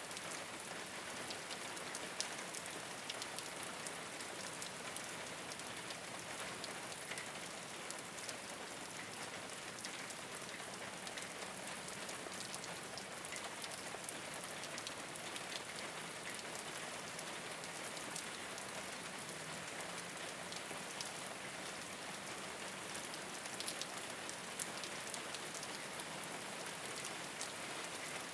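Steady rain falling on a rooftop, a continuous hiss with many small individual drop ticks.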